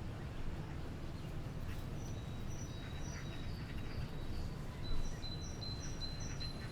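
A small bird chirping a run of short high notes, about three a second, starting about two seconds in, over a steady low outdoor rumble.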